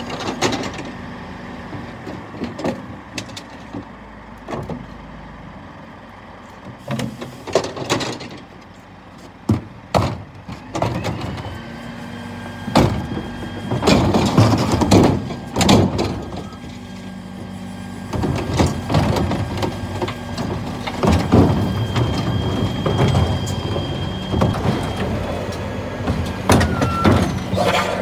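Rear-loader bin lorry (a Scania P410 twin-pack) at work: the diesel engine running steadily under a hydraulic whine from the bin lifts and compactor, with repeated metallic clanks and knocks as wheelie bins are lifted, tipped and banged empty, busiest about halfway through and again near the end.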